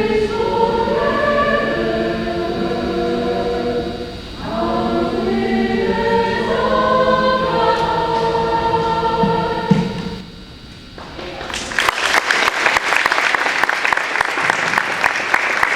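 High school choir singing, ending about ten seconds in. After a brief pause, an audience claps.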